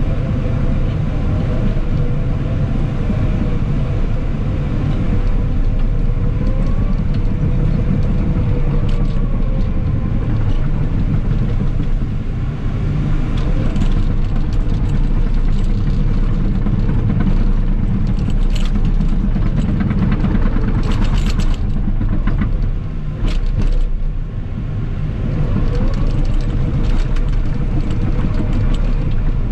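Cat 963K tracked loader's diesel engine running steadily under load, heard from the operator's seat, a deep continuous rumble with a few faint rising and falling tones and a cluster of sharp knocks a little past the middle.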